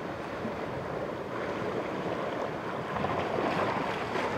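Sea surf washing against rocks, with wind on the microphone: a steady rush of noise that swells slightly near the end.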